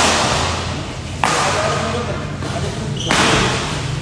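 Badminton rackets striking the shuttlecock in a fast doubles rally: three sharp cracks, at the start, about a second in and just after three seconds, each ringing out in the large hall.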